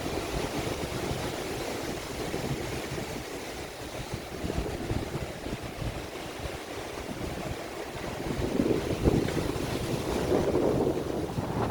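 Strong gusty storm wind buffeting the microphone and rushing through the trees, swelling louder about eight seconds in.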